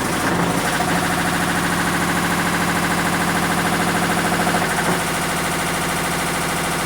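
Hitachi Beat Wash washing machine running its spin cycle with a loud, fast, rhythmic mechanical noise, the sign of a failing clutch. The noise changes character about five seconds in.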